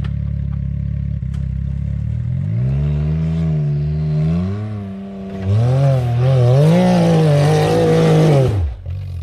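Side-by-side UTV engine idling, then revved twice as it works up a rock climb without four-wheel drive engaged. The second rev is harder and louder, with a rushing hiss, and the engine drops off abruptly near the end.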